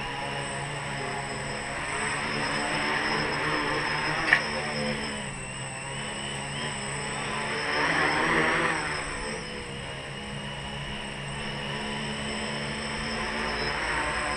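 3D-printed tricopter in flight: the steady whir of its three electric motors and propellers, swelling louder about eight seconds in. A single sharp click comes about four seconds in.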